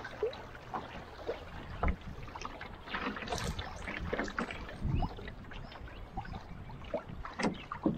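Choppy river water splashing and slapping against the hull of a Northstar solo canoe running through a riffle: many small, irregular splashes over a steady rush of moving water.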